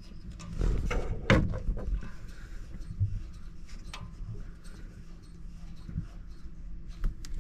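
Close rustling and scraping of a person working in a cramped space, with breathing near the microphone and a sharp knock a little over a second in.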